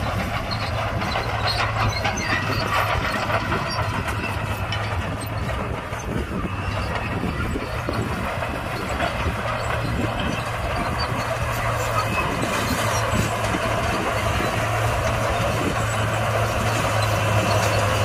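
Bulldozer's diesel engine running steadily at working revs, with rattling and clanking from its steel tracks.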